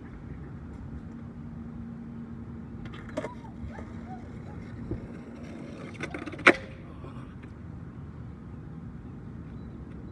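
A distressed dog whining in short rising-and-falling cries over a steady low rumble, with one short, sharp loud sound about six and a half seconds in.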